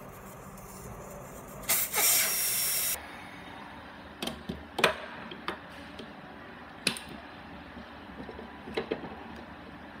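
Air hissing out of a car tire's valve stem for about a second as the valve is opened, followed by a handful of sharp metallic clanks as the wheel is clamped onto a tire changer's threaded centre shaft with a cone and hub nut.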